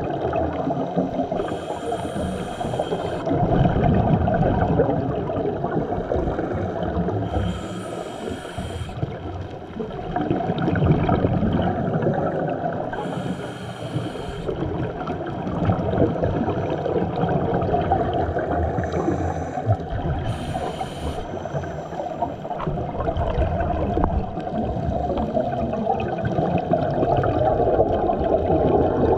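Underwater sound of scuba divers breathing through their regulators: a short hiss of an inhaled breath four times, about every six seconds, with the bubbling rumble of exhaled air in between.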